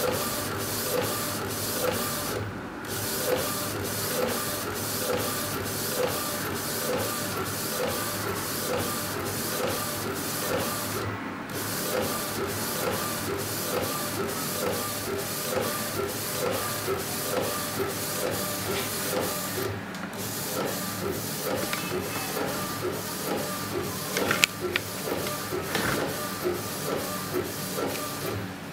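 Epson inkjet printer converted to an A4 flatbed T-shirt printer, its print-head carriage shuttling back and forth across the shirt in a steady rhythm about every two-thirds of a second while printing. Brief breaks come about every eight or nine seconds, and a few sharp clicks sound near the end.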